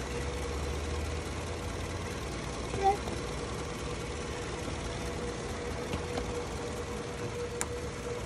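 2005 Toyota Camry's 2.4-litre four-cylinder engine idling steadily with its newly fitted alternator charging, a steady tone running over the low rumble of the idle. A short squeak about three seconds in and a sharp click near the end.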